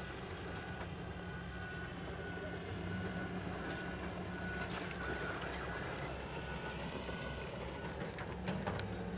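Steady drone of construction machinery from the site next door, with a high beep repeating at short even intervals. Underneath it, a Traxxas Slash Mudboss RC truck runs on the dirt oval.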